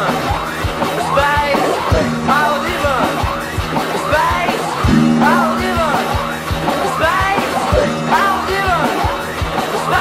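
Improvised experimental noise music on electric guitars and space toys: repeated swooping pitch glides that rise and fall, over low held drone tones, with scattered low thumps.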